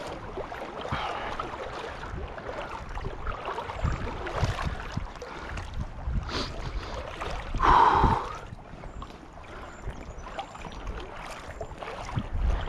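Stream water splashing and sloshing as a large brown trout is played and drawn in close by a wading angler, with a louder burst about two-thirds of the way through.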